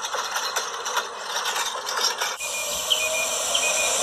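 Large-scale model train cars rolling along metal track, their wheels rattling and clicking irregularly. About two and a half seconds in the sound changes abruptly to a steadier running hiss with faint squeaks.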